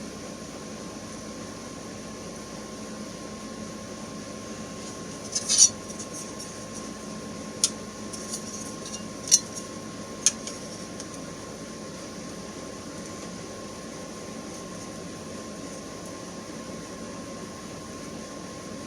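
A handful of small sharp clicks, a little cluster then a few single ones, as ruby stones are dropped into the countersunk holes of a belt's side plate. A steady hum runs underneath.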